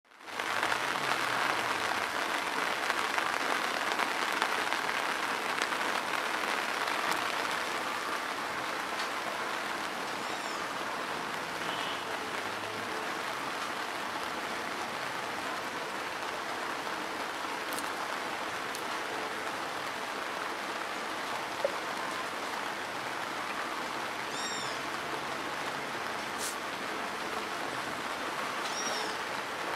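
Steady rain falling on a muddy dirt road, its puddles and grass, an even hiss that is a little heavier for the first several seconds and then holds level.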